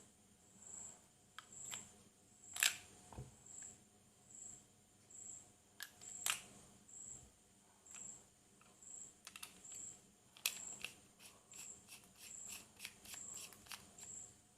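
Sharp clicks from handling: a few spread apart, then a quick run of them near the end. Under them a faint high-pitched chirp repeats about once a second.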